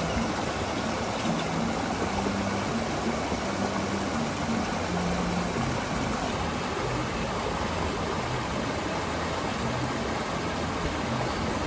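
Steady rushing of running water from a stream. Faint low notes are held underneath it in the first half.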